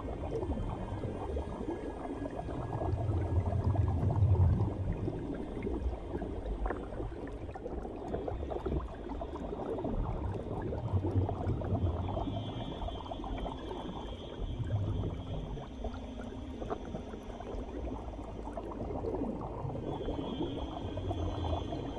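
Continuous underwater bubbling and gurgling from air streaming out of helmet-diving helmets, heard muffled through a waterproof camera case.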